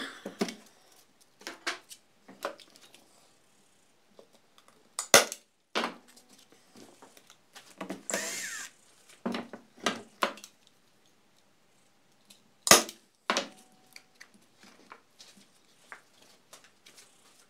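Scattered knocks and clatter as the sanding drum and tools are handled on a workbench, the sharpest knocks about 5 and 13 s in. About 8 s in, a red Milwaukee cordless driver runs for under a second, driving out the screw that holds the sandpaper sleeve on the drum.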